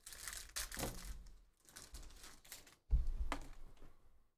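Foil wrapper of a Panini Absolute football card pack crinkling and tearing as the cards are pulled out, with light clicks of the cards being handled. There is a low thump about three seconds in.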